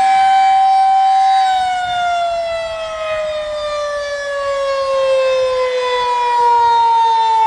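Tornado warning siren, so loud, heard from inside a house about 135 feet away. It holds a steady wail, then slowly falls in pitch as it winds down, growing quieter in the middle and louder again near the end.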